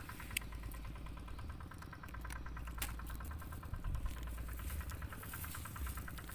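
A small engine idling steadily, with a low hum and a fast even pulse, and a few faint clicks.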